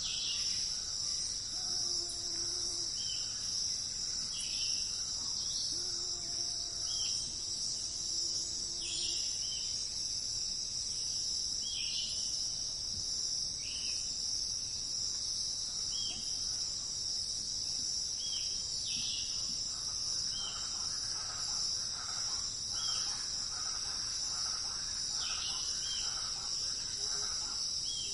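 Forest insects chirring steadily at a high pitch, with a bird repeating short falling chirps about every second and a half. A low hooting call sounds twice early on, and a quicker run of song notes from another bird comes in about two-thirds of the way through.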